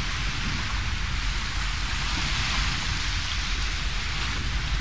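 Steady rushing noise with a rough, fluttering low rumble underneath, typical of wind buffeting a camcorder's built-in microphone at the seashore.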